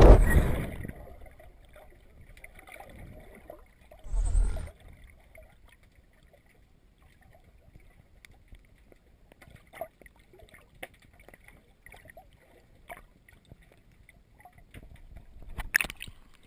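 Muffled water noise picked up by a camera underwater: a burst of rushing water at the start and a low thump about four seconds in, then quiet stretches with scattered faint clicks. The noise rises again near the end as the camera breaks the surface.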